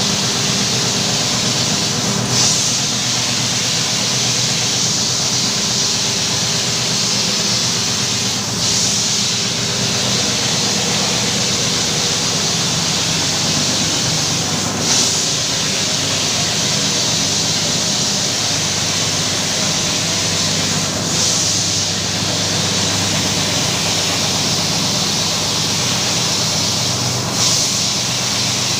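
Carpet-washing machine running steadily: a motor hum under a loud hiss like spraying water. A brief swell in the hiss comes about every six seconds.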